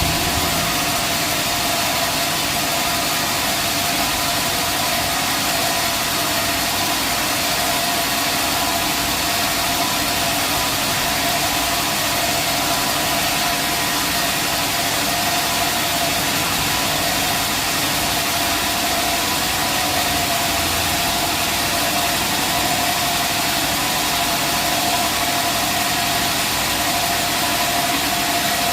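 Band sawmill running steadily: a constant machine whine over an even, loud hiss.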